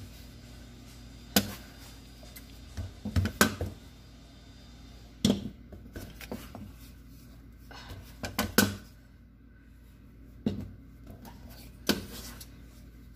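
Bread dough being worked by hand and with a bench scraper on a silicone mat: a handful of sharp knocks and slaps at irregular intervals as the scraper and hands hit the mat and dough, over a faint steady hum.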